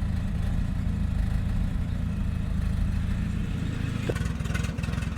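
Turbocharged Honda B20 four-cylinder engine in a 1995 Acura Integra idling steadily on its first start-up after the build.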